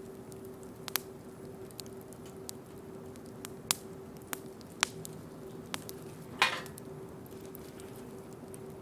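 Wood bonfire crackling, with scattered sharp pops and one loudest pop about six and a half seconds in followed by a brief hiss. A faint steady hum runs underneath.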